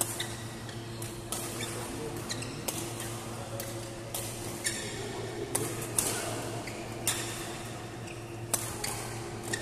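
Badminton racket strikes on a shuttlecock during a doubles rally: sharp cracks about every one to one and a half seconds, with brief squeaks of shoes on the court floor, over a steady hum in the hall.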